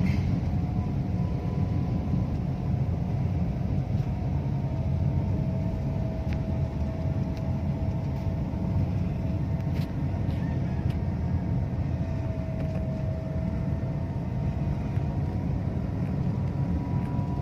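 Steady low rumble of a car's engine and tyres heard from inside the cabin while driving, with a faint steady whine above it and a few faint ticks.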